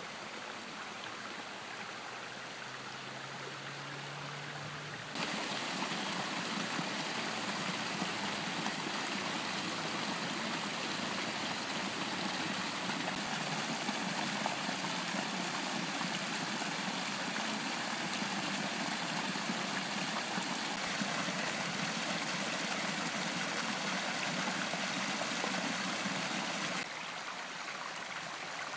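Small stream running and splashing over rocks and a little drop, a steady rushing of water. It gets louder about five seconds in and softer again near the end.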